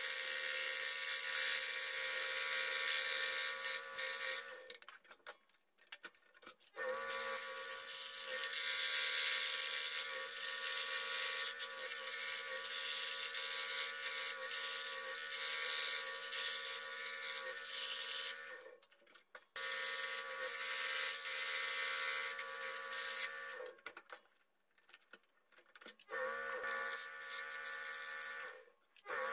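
Scroll saw running, its fine blade cutting through thin plywood: a steady motor hum under a high hissing rasp. The sound drops abruptly to near silence four times, about five seconds in, twice past the middle, and just before the end.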